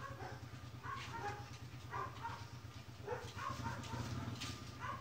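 Small pets crying with short high calls, about one a second, over a steady low hum.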